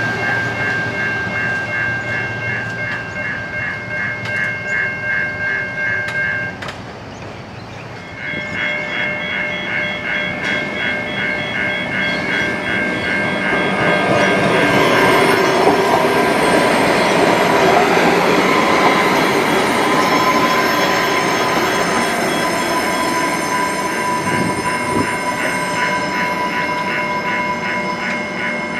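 Level crossing warning bells ringing in a fast, even pulse while an Adelaide Metro diesel railcar passes over the crossing. From about halfway the train's running noise grows loud and covers the bells, which come through again near the end as the train moves off.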